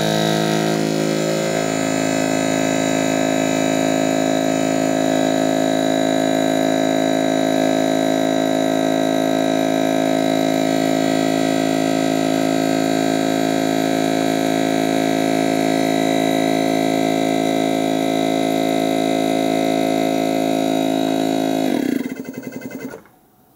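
Brushless DC refrigerator compressor (HB075Z12) running at full power while pumping up a bicycle tire, a steady hum of several tones. It winds down and stops about 22 seconds in.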